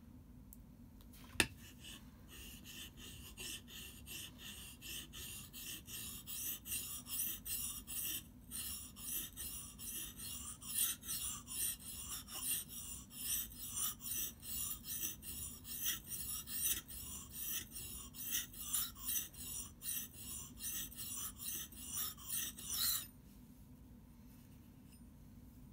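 Small axe's blade scraped back and forth on a wet whetstone to sharpen its edge, an even rasping stroke about twice a second that stops suddenly near the end. A single sharp knock about a second in.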